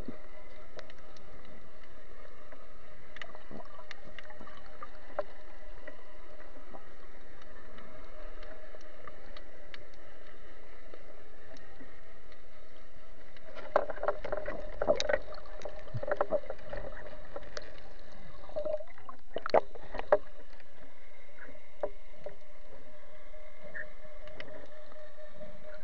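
Muffled underwater ambience heard through a waterproof camera housing: a steady hiss with a faint hum, scattered light clicks, and two short bouts of knocking and clicking, one a little past halfway and another about twenty seconds in.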